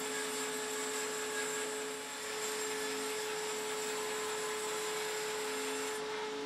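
Large bandsaw running steadily while it rips a walnut board freehand: a constant hum with the hiss of the blade cutting through the wood.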